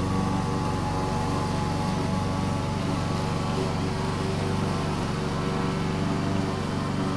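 Lawn mower engine running steadily at an even pitch while cutting grass.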